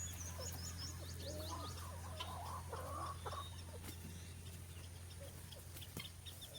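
Chickens clucking faintly, with short high chirps of small birds over a low steady hum.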